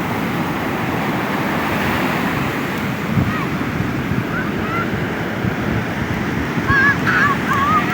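Ocean surf washing on a beach, a steady rushing noise with wind buffeting the microphone. Short, wavering high-pitched calls come in faintly a few seconds in and more often near the end.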